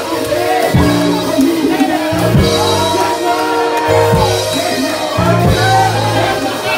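Church praise music: a band's drum kit and held bass notes under voices singing.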